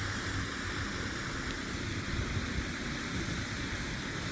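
Steady rushing of falling water from a small park waterfall, an even noise with no breaks.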